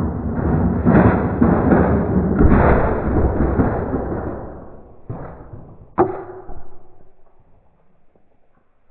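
Tyco Crash Test Dummies toy car rolling fast toward a cardboard barrier with a long rushing noise that fades off, then hitting it with two sharp knocks about five and six seconds in, the second ringing briefly, as the breakaway plastic panels fly off.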